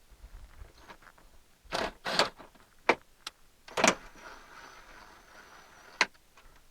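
Sharp metallic clicks and clunks of a window regulator assembly and its bolts being handled and fitted inside a car door, about six in all. A faint steady high whine sounds for about two seconds in the middle, ending with a click.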